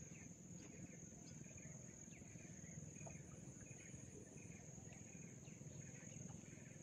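Faint steady high-pitched drone of insects in the riverside forest, with scattered faint short chirps over a near-silent background.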